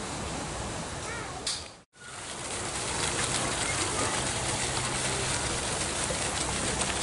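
Small garden pond fountain splashing: a steady, even hiss of falling water with a fine patter, which starts after a brief break in the sound about two seconds in.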